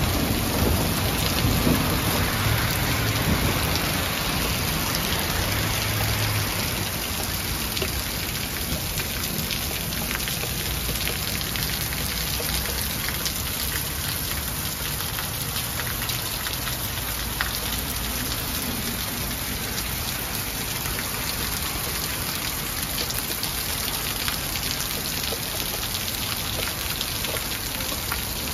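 Hail and rain falling steadily, a dense patter of many tiny ticks as small ice pellets hit the ground and balcony, a little heavier for the first few seconds.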